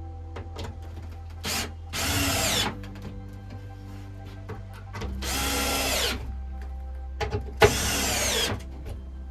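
Power drill run in several short bursts, about three main ones under a second each plus a brief blip, its motor whine gliding in pitch as it speeds up and slows. Background music plays under it.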